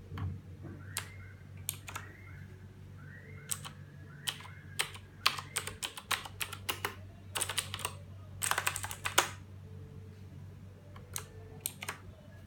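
Typing on a Redragon K300 mechanical keyboard with blue switches: scattered single keystrokes, then a fast run of keypresses about seven to nine seconds in.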